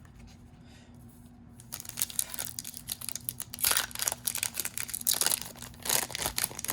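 Foil wrapper of a Pokémon card booster pack being torn open and crinkled: a dense run of crackling that starts about two seconds in, after a quiet start.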